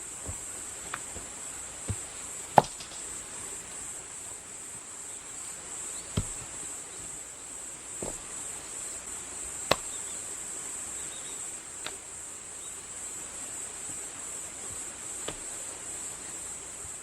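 A steady, high-pitched chorus of insects, with a handful of sharp, irregular knocks; the loudest come about two and a half seconds in and near the middle.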